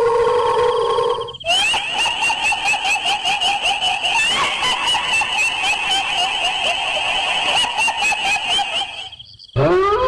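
A loud, pitched wailing sound. A steady tone breaks about a second and a half in into a fast warbling trill that runs for several seconds. It drops out briefly near the end, then glides up again into a steady tone.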